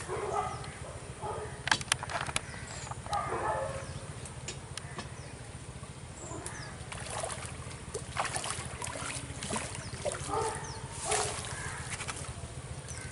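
Outdoor ambience at a pond: birds calling now and then, with a few sharp clicks and a faint steady hum underneath.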